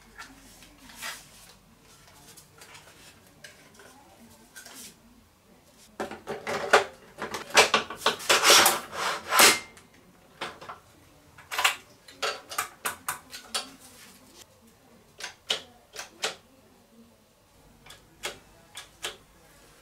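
Clicks, knocks and scraping as the DYU T1 e-bike's removable battery pack is handled and slid back into its slot in the frame. A burst of scraping and knocking comes about six to ten seconds in, followed by a string of sharp separate clicks.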